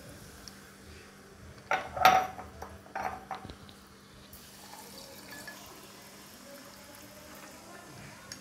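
Club soda poured from a bottle into glasses of ice and crushed mint, running and splashing. A few sharp clinks or knocks come about two seconds in and again about a second later.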